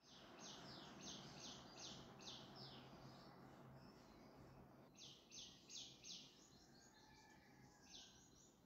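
Faint birds chirping in quick runs of short high calls, about five a second, over a low steady hum and room noise.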